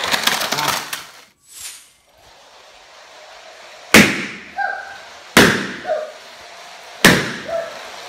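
Three sharp, loud balloon pops about a second and a half apart, starting about four seconds in: inflated balloons burst by a pin taped to the front of a toy LEGO train. A brief rapid clatter comes in the first second.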